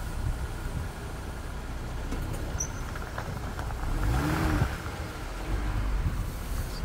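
Car running with a steady low rumble, swelling about four seconds in with a rise and fall in pitch and a hiss before settling back.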